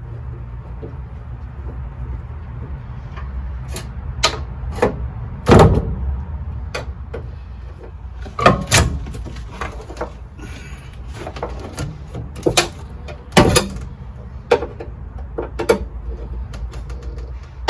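Irregular knocks, clicks and clunks of car parts and tools being handled, about a dozen sharp hits with the loudest about five and a half seconds in and again near thirteen seconds, over a steady low hum.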